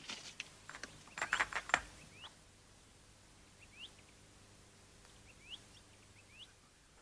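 Tissue paper rustling and crinkling as a small package is unwrapped, loudest about a second in. After that come faint bird chirps, short rising notes heard singly and in pairs.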